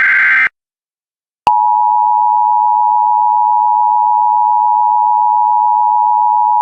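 The last burst of an Emergency Alert System SAME digital header ends about half a second in with a harsh data screech. After a second of silence, the EAS two-tone attention signal (853 and 960 Hz together) starts and holds steady and loud, announcing the flash flood warning that follows.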